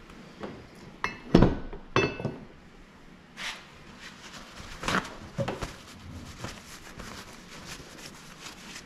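Metal knocks and clinks as a snowmobile engine's split crankcase half is handled and set down on a cluttered metal-parts workbench: a few sharp clunks in the first two seconds, more spaced knocks, then lighter clinks of parts and tools.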